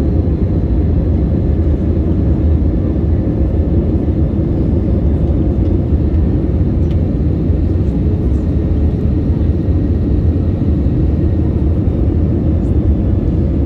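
Airbus A320-family airliner cabin noise on descent toward landing: the underwing turbofan engine and rushing air make a loud, steady low rumble, with faint steady tones above it.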